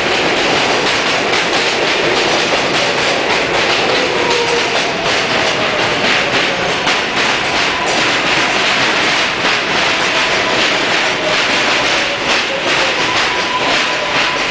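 New York City subway train running through a station at speed: a steady loud rush of wheels on rail with rapid clacking over the rail joints, and a faint whine that slowly falls in pitch.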